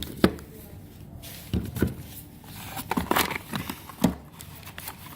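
Handling noise: a few short knocks and clicks. The sharpest comes about a quarter of a second in, and there are others around one and a half, three and four seconds in.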